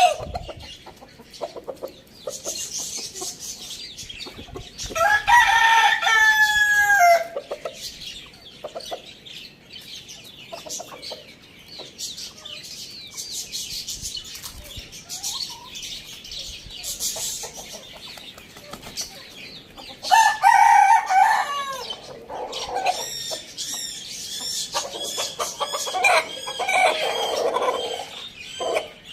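Rooster crowing twice, each crow about two seconds long with its pitch dropping at the end, the first about five seconds in and the second about two-thirds of the way through. Clucking fills the gaps, and small birds chirp near the end.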